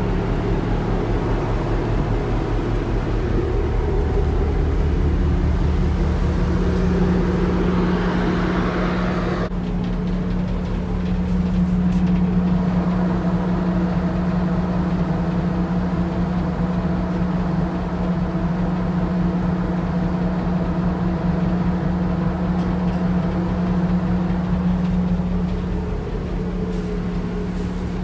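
Steady drone of a cargo ship's engines and machinery while under way: a constant low hum with one strong steady tone. A rushing wind-and-water noise over it swells and then drops off abruptly about nine seconds in.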